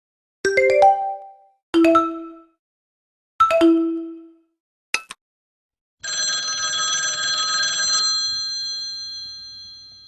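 Mobile phone ringtone and alert tones playing one after another: a quick run of several chiming notes, two single chimes, a brief click, then a sustained bright chord that fades out over about four seconds.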